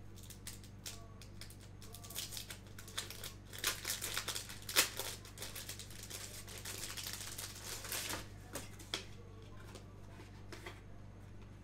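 Packaging crinkling and rustling as a small item is unwrapped by hand, with many irregular clicks and taps that are busiest midway and die away near the end.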